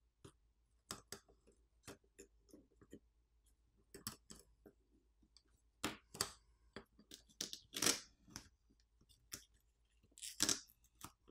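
Faint, irregular clicks and taps of hands handling small electronic parts as an e-ink tablet's motherboard is worked loose from its frame. The loudest knocks come about eight and ten seconds in.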